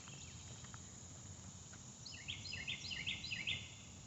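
A songbird singing a quick run of repeated downslurred notes about halfway through, over a faint steady background hum.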